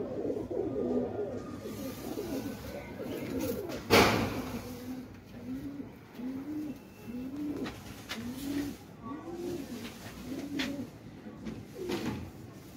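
Black teddy pigeons cooing: low, wavering coos, then a steady run of short rising-and-falling coo phrases repeated under a second apart. A single sharp click about four seconds in.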